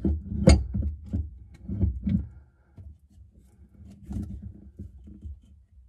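Wrench working at a sink faucet's mounting nut under the basin: metal clicks and knocks, a sharp one about half a second in and a cluster around two seconds, then fainter scraping and ticking as the nut is worked loose.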